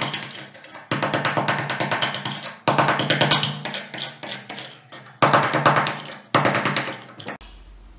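Background music with a fast, percussive beat, in sections that start and stop abruptly; it cuts off near the end.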